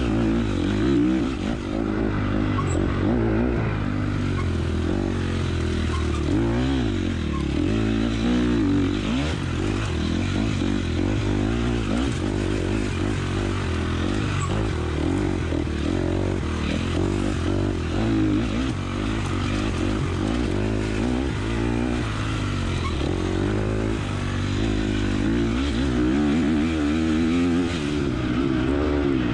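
Dirt bike engine being ridden hard, its pitch rising and falling continuously as the throttle is opened and closed through the turns.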